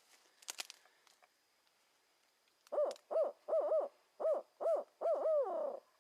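Barred owl hooting: a series of about seven rising-and-falling hoots in the 'who cooks for you' pattern, ending in a longer drawn-out falling note.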